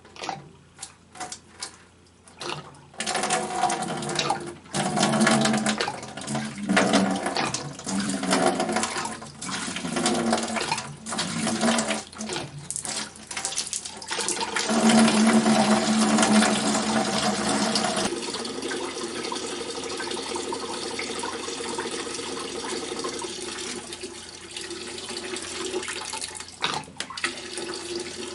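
Water running out of a hydronic heating expansion tank's drain valve into a bucket, draining the tank to relieve excess system pressure. A few knocks come in the first couple of seconds, and the flow turns steadier about two-thirds of the way in.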